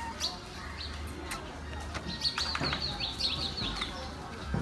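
Small birds chirping: scattered high chirps, then a quick run of about nine short falling chirps about halfway through, with a few sharp clicks.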